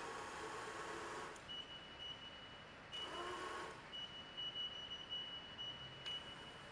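Bridgeport Series I mill's CNC table-feed servo whining faintly as it traverses the table. The whine stops about a second and a half in and returns for a short second move around three seconds in. Between the moves a thin high steady tone continues, with a couple of light clicks.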